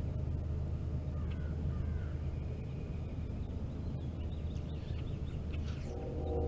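Outdoor ambience: a steady low rumble with birds calling faintly, including a quick run of about six short calls around the middle. Background music comes in near the end.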